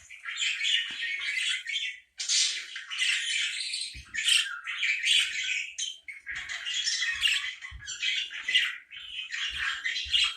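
Parakeet chattering and squawking in a near-continuous stream of rapid, harsh calls, with short pauses about two seconds and six seconds in.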